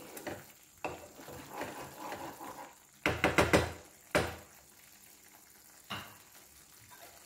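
Wooden spatula stirring and scraping a thick masala paste in a non-stick kadhai. About three seconds in comes a quick run of knocks of the spatula against the pan, followed by two single knocks a second or two apart.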